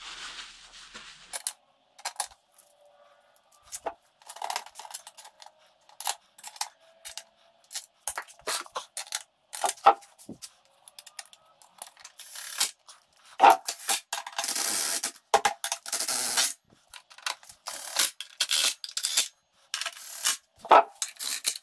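Hand tools working bolts on a BMW N52 engine: irregular sharp metallic clicks and clinks, with a few longer stretches of dense clicking partway through, as bolts are fitted and run down.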